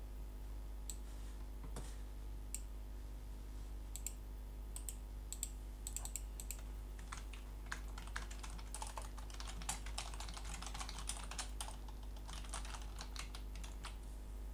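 Typing on a computer keyboard: a few scattered clicks, then a quick run of keystrokes from about halfway through until shortly before the end, over a faint steady low hum.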